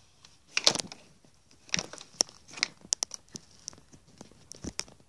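Handling noise from hands moving plastic fashion dolls: a brief rustle about half a second in, then a string of irregular sharp clicks and taps.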